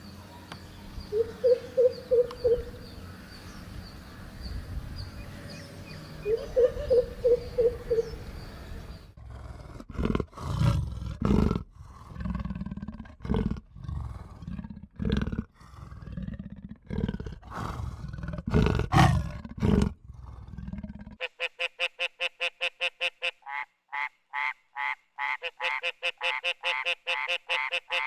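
A series of animal calls. It opens with two short runs of rapid pulsed calls over a steady background hum. Then comes a run of loud, deep roars. In the last quarter, fast, evenly repeated croaking calls follow.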